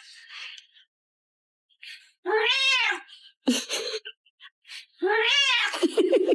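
Domestic cat meowing twice in reply: two long meows, each rising and then falling in pitch, one about two seconds in and one about five seconds in.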